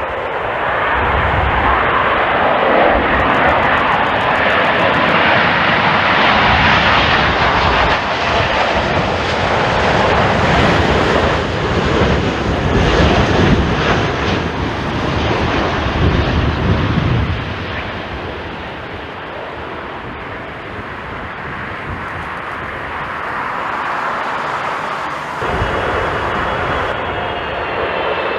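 Jet airliner engines roaring as the aircraft passes close by, loud for the first half and then dropping to a lower, steadier sound. The sound changes abruptly about 25 seconds in, and a high engine whine comes in near the end.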